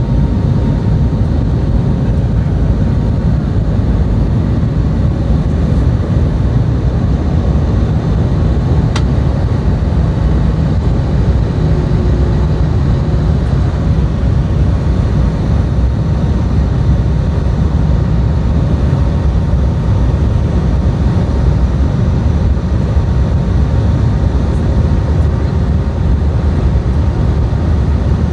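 Cabin of an Airbus A319-132 heard from a window seat: a loud, steady, deep rumble of its IAE V2500 jet engines and airflow, with a faint steady whine above it.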